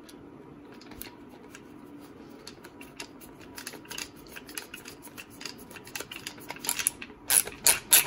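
Screwdriver turning a screw into a Winchester Model 12 shotgun's receiver: a run of small sharp metallic clicks, sparse at first and growing louder and closer together near the end.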